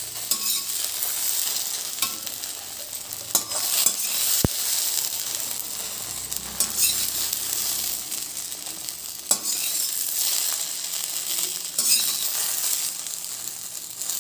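Shallow-fried okra pieces sizzling in hot oil in a stainless steel kadhai while a perforated steel skimmer scrapes and scoops them out. There is a steady hiss, broken by several sharp clicks of the metal spoon against the pan.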